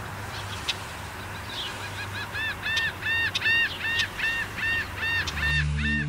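A bird calling in a steady run of short notes that rise and fall, about three a second, starting about two seconds in. Soft music comes in near the end.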